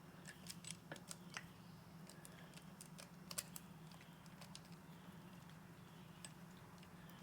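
Faint scattered clicks of a saw chain and bar being handled and seated, thickest in the first half and thinning out later, over a steady low hum.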